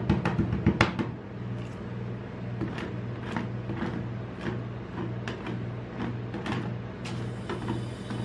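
Metal spatulas tapping fast on frozen ice cream spread on a steel cold plate for about a second. Then the sound thins to scattered scrapes and taps as a spatula scrapes the frozen sheet, over a steady low hum.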